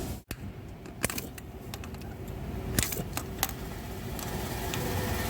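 Metal hand tools clicking and tapping against engine valve-train parts while stuck AFM valve lifters are worked loose, a series of sharp, separate clicks over a low steady background hum.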